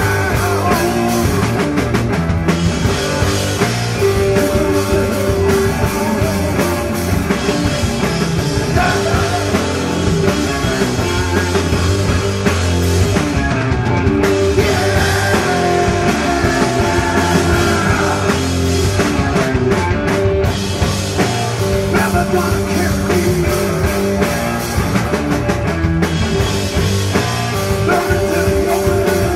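Stoner/desert rock band playing live: electric guitar and drum kit in a loud, dense, continuous instrumental passage.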